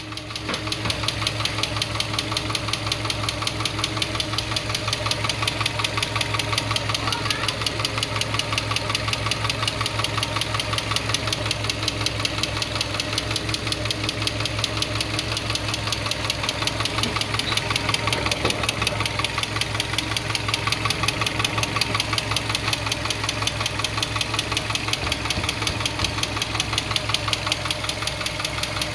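Seat Altea 1.6 engine running steadily with a fast, even ticking that keeps time with the engine. This is an unexplained noise the owner is asking about.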